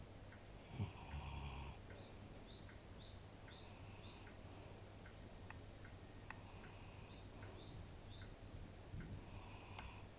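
Faint snoring of an old black Labrador asleep, one soft snoring breath about every three seconds.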